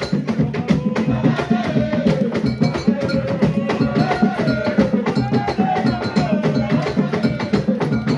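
Live Central African traditional dance music: a steady, dense beat of drums and hand percussion, with a voice singing a wavering melody over it.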